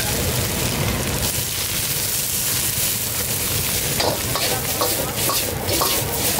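Shrimp and vegetables stir-frying in a wok over a gas burner: steady sizzling, with a long steel ladle scraping and clinking against the wok. The clinks come in a quick run about four to five and a half seconds in, as the wok is tossed.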